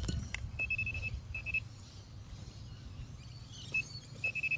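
Metal-detecting pinpointer probe beeping a steady high tone in short stretches as it is worked around a dig hole, then holding the tone near the end: the sign of metal close to its tip.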